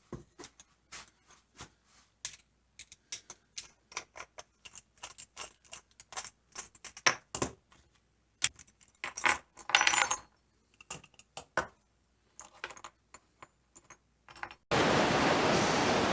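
Light clicks and taps, some with a metallic clink, and a couple of short scrapes from handling layout tools while marking center lines on a wooden block. Near the end a steady hiss comes in suddenly.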